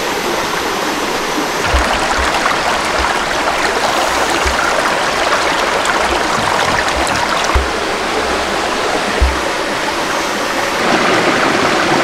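Shallow stream running steadily over rocks, with a few brief low bumps now and then.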